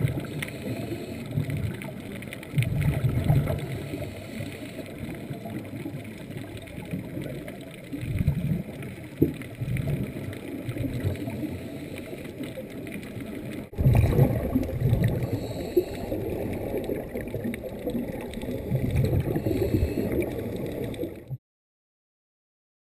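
Muffled underwater water noise through a camera's waterproof housing, with low gurgling swells every few seconds. It breaks off sharply about 14 seconds in and picks up again, then cuts to silence for the last second and a half.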